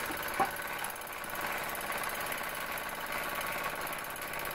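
Bowman M101 model steam engine running steadily with the burner taken out, driven by the steam left in its boiler. A single sharp click sounds about half a second in.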